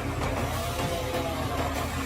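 A heavy engine running under load, its pitch rising and falling.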